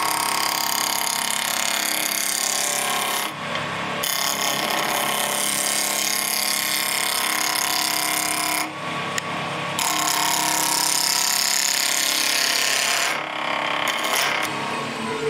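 Spindle roughing gouge cutting a spinning square wood blank on a lathe, taking it down to round: a loud, rough cutting noise over the lathe's hum. It breaks off briefly three times, about three seconds, eight and a half seconds and thirteen seconds in.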